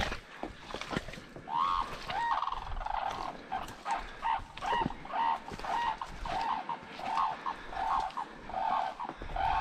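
A bird calling over and over, a short note that rises and falls, repeated about every two-thirds of a second from about a second and a half in. A few snaps and steps through mud and brush in the first second.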